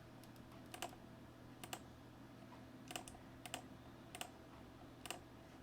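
Faint, sparse computer key clicks, single presses about once a second, some in quick pairs, over a low steady hum.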